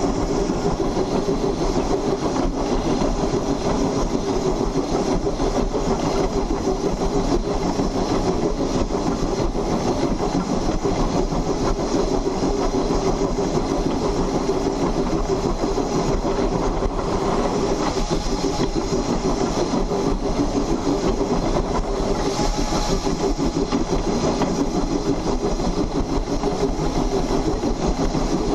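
Close-up running noise of a 2-8-2 saddle tank steam locomotive pulling a heavy train: the steady rumble and clatter of its driving wheels and side rods on the rails.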